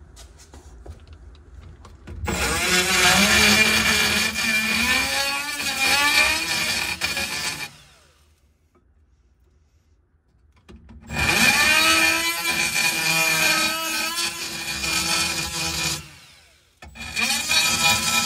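Power drill cutting into metal in three long runs, its motor pitch wavering as it loads and recovers.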